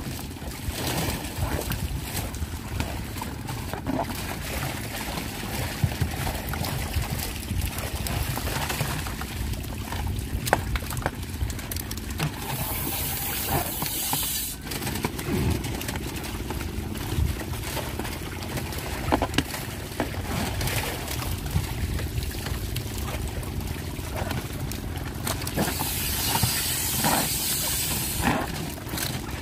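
A motor runs steadily with a low hum, while plastic bags of live carp crinkle and rustle as they are handled and tied. Two short bursts of hissing come about twelve seconds in and again near the end.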